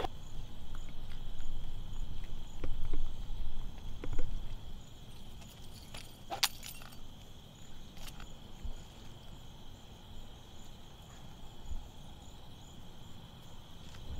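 Crickets chirping steadily, with scattered footsteps and a set of keys dropping with a sharp clink about six and a half seconds in.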